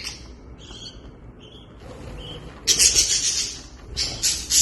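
Budgerigars chirping: short high chirps, with louder bursts of chatter a little under three seconds in and again near the end.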